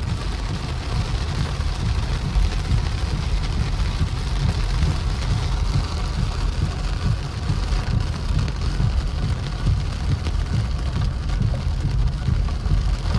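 Heavy rain hitting a moving car's roof and windshield, heard from inside the cabin, over a steady low rumble of the car on the wet road.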